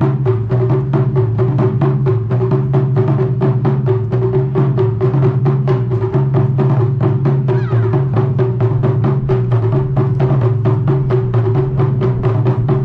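Taiko drum ensemble playing a fast, even beat of about five strokes a second over a steady low drone.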